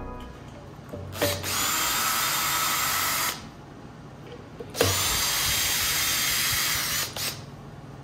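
Cordless drill running in two bursts of about two seconds each, turning the self-tapping screws that hold a plywood guide to the steel top of a propane tank.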